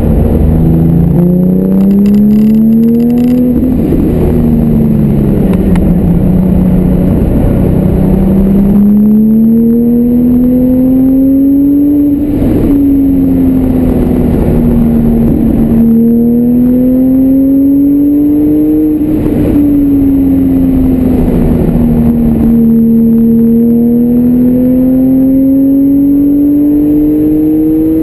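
Car engine heard from inside the cabin while lapping a race track. Its pitch climbs steadily under acceleration and falls back four times, with one sudden drop about halfway through.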